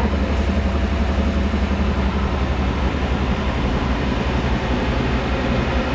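Belt-driven wheat flour mill running steadily, a continuous low mechanical hum with grinding noise above it.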